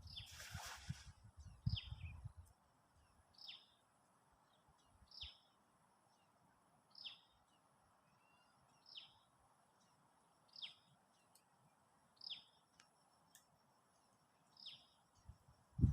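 A bird calls over and over, each call a short, high note that falls in pitch, about every second and three-quarters. A few low thumps and a brief rush of noise come in the first two seconds, and one thump at the very end.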